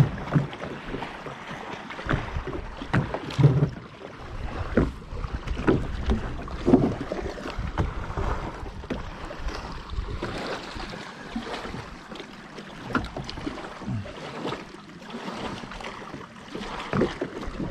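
Water lapping against the hull of a small boat, with irregular knocks and clatter from gear and handling on board.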